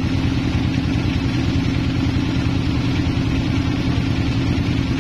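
Sawmill machinery running steadily with no cut under way: an even, low, engine-like drone that holds the same level throughout.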